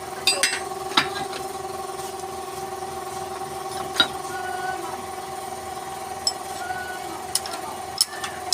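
Wood lathe running with a steady motor hum, broken by a few short sharp clicks.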